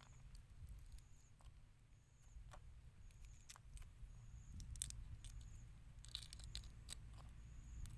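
Faint crackles and clicks of raw shrimp shells being peeled and pulled apart by hand, scattered and irregular, over a low steady rumble.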